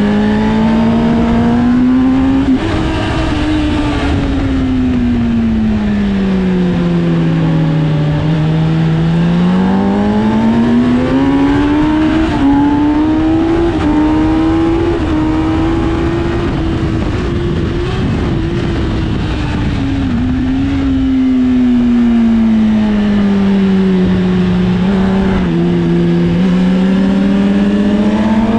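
Sport bike's inline-four engine under load on a race track, its revs swinging slowly down and back up through corners and straights, with brief steps in pitch at gear changes, over heavy wind rush.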